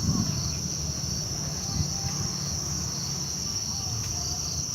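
Insects giving a steady, high-pitched drone, with a low rumble underneath.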